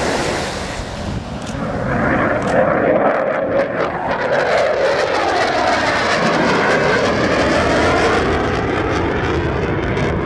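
McDonnell F-4C Phantom II's twin J79 turbojets in a loud flyby, the jet noise swelling about two seconds in and holding with a crackling edge.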